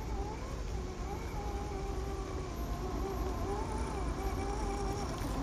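Electric motor and gear whine of an Axial SCX10 III RC crawler on the move, its pitch rising and dipping over and over as the throttle is worked.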